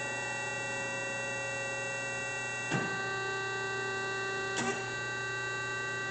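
W.F. Wells F-15 horizontal band saw, powered up with its blade stopped, giving off a steady electric hum, with a sharp clunk about three seconds in and a lighter one about a second later as the machine's vises and carriage are worked.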